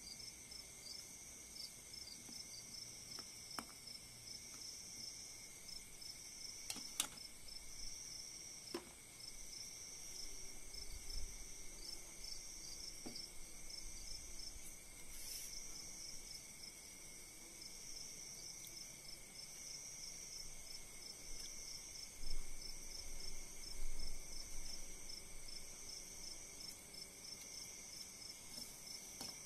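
Crickets chirping steadily in a high, fast, even pulsing trill. A few sharp clicks and two louder knocks come from the ladle and metal colander against the cooking pot.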